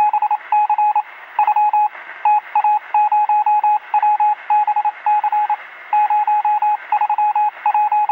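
Morse-code-style radio beeping: a single high tone keyed on and off in quick short and longer pulses, over a thin radio hiss.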